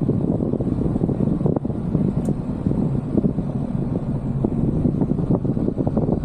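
A vehicle driving over a rough, rutted dirt track: a steady low rumble with many small knocks and rattles from the bumpy ground.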